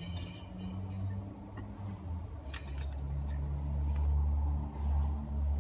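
Small dry softwood kindling sticks clicking and knocking against each other and the stove hearth as they are stacked into a pyramid, in a few scattered bursts, over a steady low rumble.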